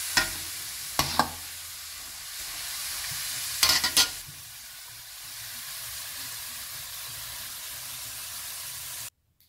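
Strips of piñonate dough deep-frying in hot oil, a steady sizzle as they brown. A metal slotted spoon clinks against the enamelled pan a few times: near the start, about a second in, and several quick clinks around four seconds. The sound cuts off suddenly near the end.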